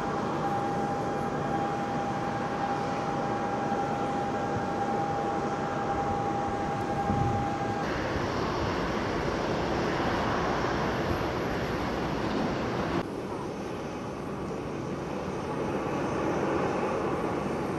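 Airport apron noise of airliners being towed by a Toyota TD35/45 towbar towing tractor: engines running, with a steady high aircraft whine in the first part. The sound changes abruptly twice.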